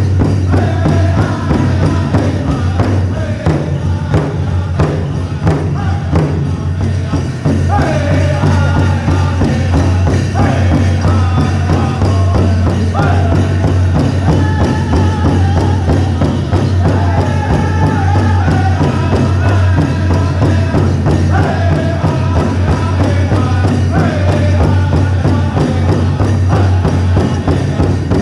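Powwow drum group playing a chicken dance song: a large shared drum struck in a steady beat, with the singers' high-pitched voices coming in about seven seconds in and falling in repeated phrases.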